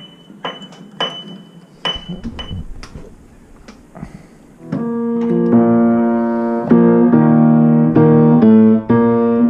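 A few light clicks and clinks, then from about five seconds in a piano playing slow, sustained chords.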